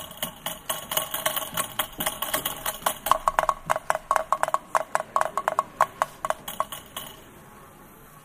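Rapid, irregular run of small clinking strikes with a bright ringing tone, densest in the middle and stopping about a second before the end.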